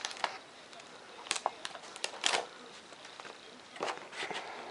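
Paper plans and clear packing tape being peeled off a foam model jet by hand: short, scattered crinkles and rustles with light taps.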